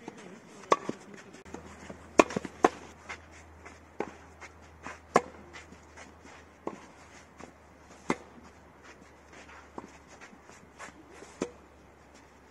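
Tennis rally: a ball struck by rackets in sharp hits a second or more apart, with fainter clicks and footsteps on the clay court between.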